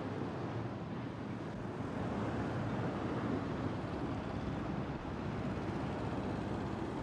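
Steady traffic rumble with wind noise, as cars drive slowly through port car lanes.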